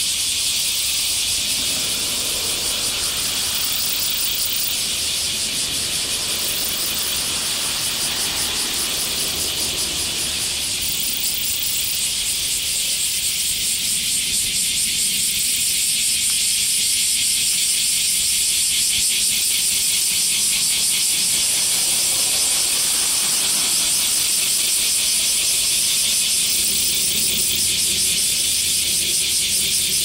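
A chorus of summer cicadas buzzing, loud, shrill and steady, with a fast pulsing texture.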